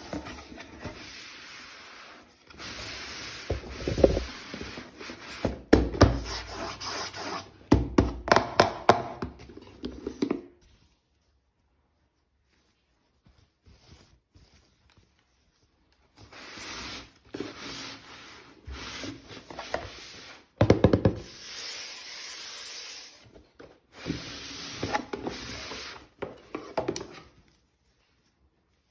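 Toy packaging being handled and opened, making rubbing and rustling noise in two long stretches with a few sharp clicks and low knocks. There is a pause of several seconds in between.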